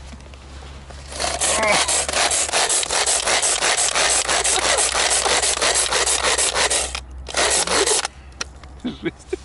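Pull-cord manual food chopper being yanked again and again, its blades spinning and rasping in the bowl as they chop live maggots into mush. A run of rapid pulls lasts about six seconds, then after a short break there is one more burst.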